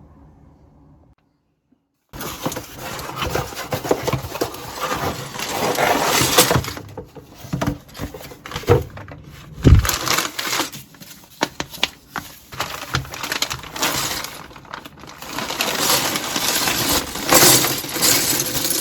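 LEGO pieces and their plastic bags being handled: crinkling plastic and small bricks clattering and clicking, with a sharper knock about ten seconds in. It starts about two seconds in, after a short silence.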